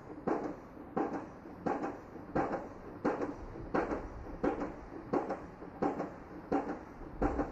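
Steady, evenly spaced banging, about three knocks every two seconds, from construction work.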